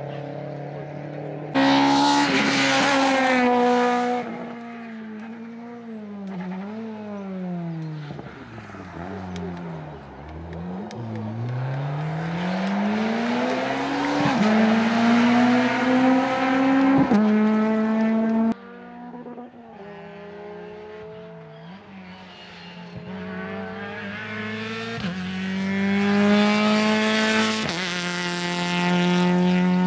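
Rally car engines revving hard, the pitch climbing through each gear and dropping sharply at every shift. Several cars are heard one after another, with abrupt cuts between them.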